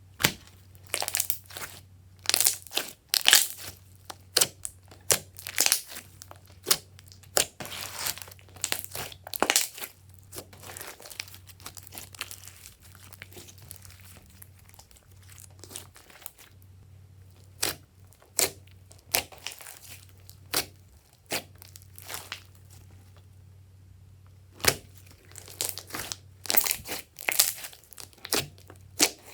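Glossy slime being squished and stretched by hand, giving irregular sticky clicks and crackles in bunches.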